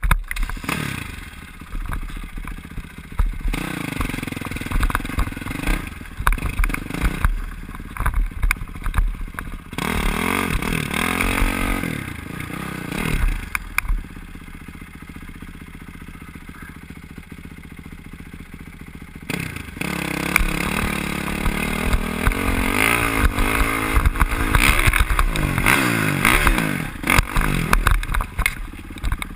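Dirt bike engine ridden hard over rough trail, heard from the rider's helmet camera: it revs up and drops back again and again. It eases to a lower, steadier run for several seconds in the middle, then pulls hard again. Clattering knocks sound throughout.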